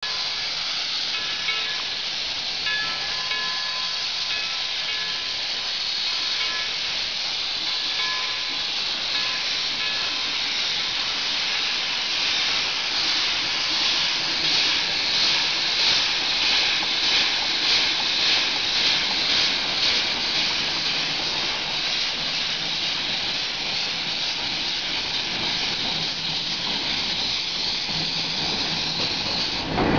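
Shay geared steam locomotive moving slowly with its cylinder cocks open, venting steam in a steady hiss. In the middle, as it passes close, the hiss pulses rhythmically at about two beats a second with the exhaust.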